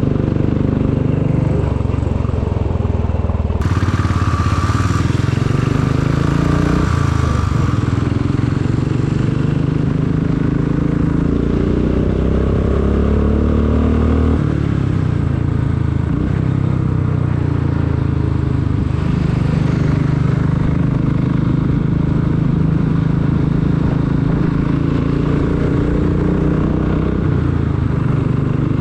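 Royal Enfield Classic 500's single-cylinder engine running under way, its pitch climbing several times as the bike accelerates and dropping sharply about halfway through. About four seconds in, a rush of hiss lasts a few seconds.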